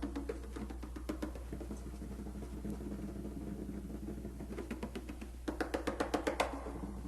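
Background music: a quiet passage of held notes with light percussion taps, with a quick run of taps about five seconds in.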